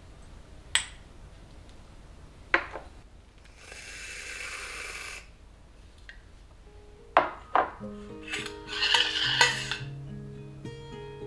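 A metal tea-infuser spoon clinks twice against a ceramic cup, then a steady hiss lasts about a second and a half. A few sharp knocks follow, and plucked acoustic guitar music comes in over the last few seconds.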